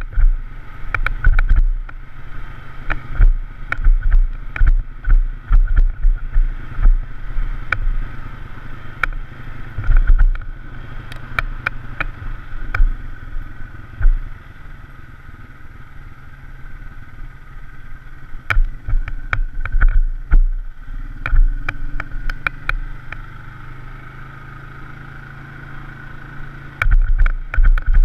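Polaris RZR side-by-side running along a dirt trail: a steady engine drone broken by frequent sharp knocks and low thumps that come at irregular intervals, thickest in the first half and again near the end.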